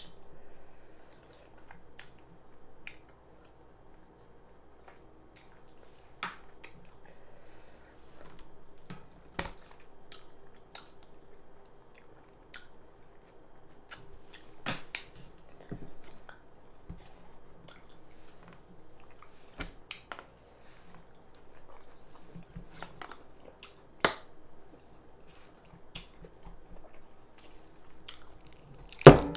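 Close-up chewing and mouth sounds of a person eating fufu, egusi stew and tilapia fish: scattered wet smacks and small clicks. Two sharper, louder clicks stand out, one about two-thirds of the way through and one at the very end.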